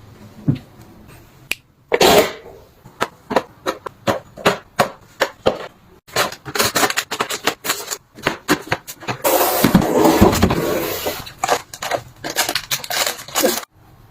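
Household items being handled and set down by hand: a run of sharp clicks, taps and knocks, a few a second, with a longer rustling stretch about nine seconds in.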